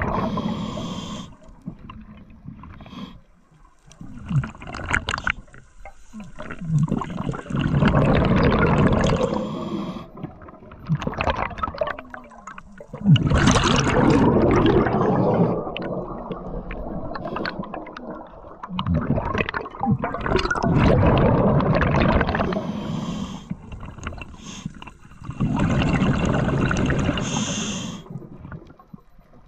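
A scuba diver breathing through a regulator: several long bubbling exhalations about every six seconds, with quieter hissing inhalations between them. A sudden sharp knock about halfway through starts the loudest burst.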